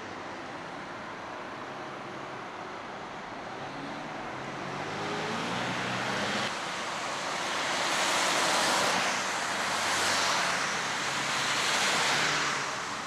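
Road traffic on a rain-wet road: a steady hiss of tyres on wet asphalt, with an engine hum rising a few seconds in, then three louder swells of tyre spray as vehicles pass close by.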